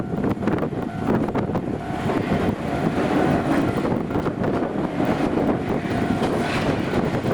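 A Wakayama Electric Railway Kishigawa Line train running over the level crossing, with wind buffeting the microphone.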